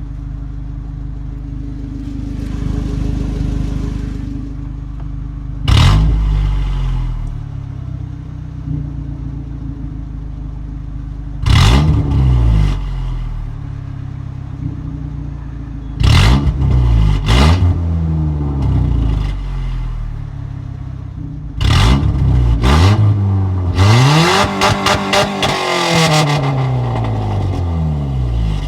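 Datsun's engine running through an exhaust with a newly fitted cutout, revved several times. Each rev comes in suddenly loud, rises in pitch and falls back to a steady idle, with a quick run of blips near the end.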